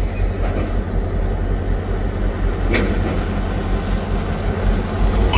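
Freight train rolling by with a steady low rumble, with a single sharp click about three seconds in.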